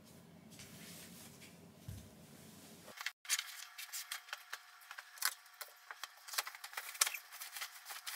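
Bedding fabric rustling and swishing as a pillow is pulled from its case and a fitted sheet is stripped off a mattress: a dense run of quick, crisp rustles from about three seconds in, after a faint low hum.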